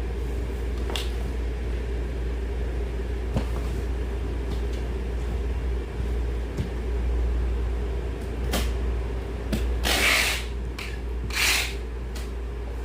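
Squash being packed into cardboard boxes: scattered light knocks and two short rasping scrapes near the end, over a steady low hum.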